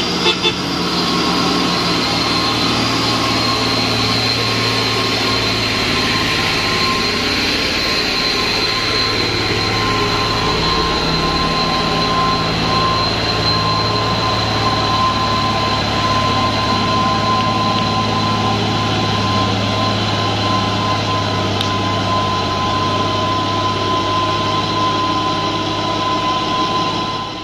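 Loaded Mitsubishi Fuso 220PS dump truck's diesel engine running steadily under load as the truck pulls slowly past and away, a low drone with a steady high whine over it.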